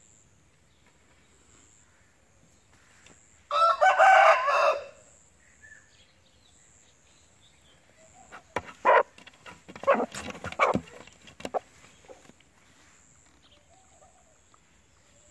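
An Asil rooster crows once, a loud call about a second long, roughly four seconds in. Around the ten-second mark comes a cluster of short sharp sounds, clucks and handling knocks. A steady high insect chirr runs underneath.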